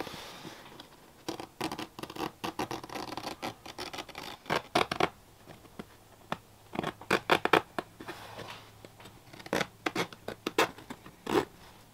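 Scalpel blade slicing through canvas tent wall: irregular runs of short scratchy strokes with pauses between.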